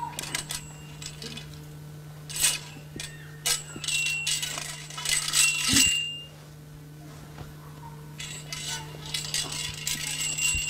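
A metal staff clinking and ringing in several quick bursts as it is swung and spun, over a steady low hum.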